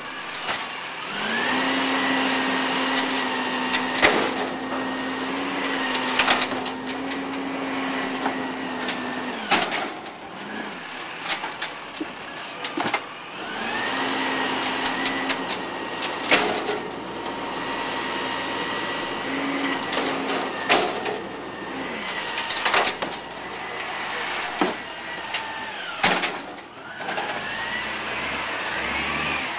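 2005 Peterbilt 320 Amrep side-loader garbage truck working its automated arm: the engine revs up and the hydraulics whine steadily while the arm lifts and dumps a cart, then drop back, twice, with a third cycle starting near the end. Sharp bangs and rattles come as the carts knock against the arm and hopper.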